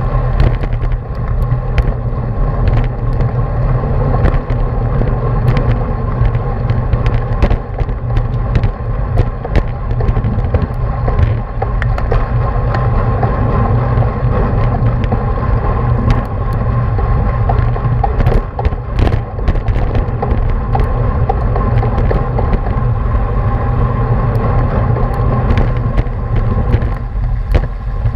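Wind rushing over the microphone of a camera carried by a racing cyclist riding in the pack, a loud steady low rumble with road and tyre noise. Short sharp clicks are scattered through it.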